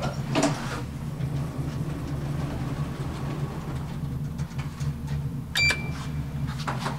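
Steady low hum inside an SMW elevator car, with a thump near the start. About five and a half seconds in, a short electronic beep sounds from the control panel as a button is pressed, followed by a couple of clicks.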